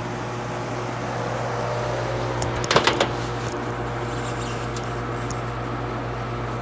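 Outdoor air-conditioner condensing unit running with a steady low hum. A short cluster of clicks and rattles comes about two and a half seconds in.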